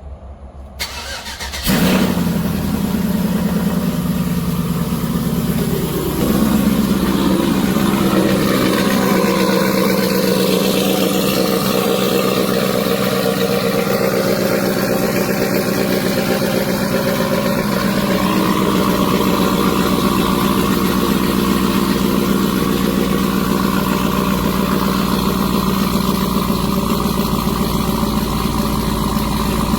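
Chevy Avalanche 1500's rebuilt 5.3 L V8 being cold-started through long-tube headers and Corvette mufflers. The starter cranks briefly about a second in and the engine catches just before two seconds. It settles at around six seconds into a loud, steady idle that carries on.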